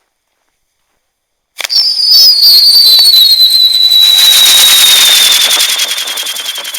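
Whistling girandola firework: after silence it ignites about a second and a half in with a sharp crack, then gives a loud, high whistle that slowly falls in pitch over a hissing, fast-pulsing spray, fading toward the end.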